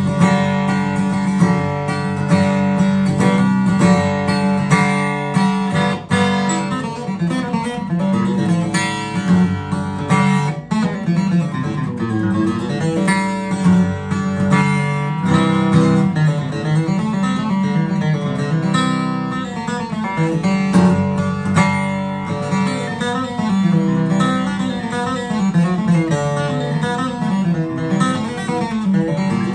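Eastman E8D-TC dreadnought acoustic guitar, with a torrefied Sitka spruce top and rosewood back and sides, played solo with a pick: a continuous run of strummed chords and picked notes with full, ringing low end.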